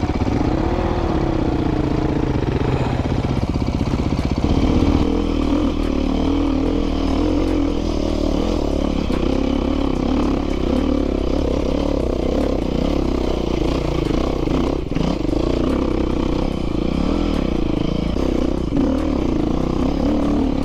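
Dirt bike engine being ridden hard, revving up and down continually so that its pitch rises and falls every second or two.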